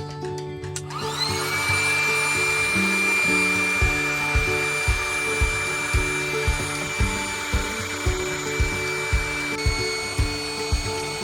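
Electric air pump switching on about a second in, its whine rising and then running steady as it inflates an air mattress.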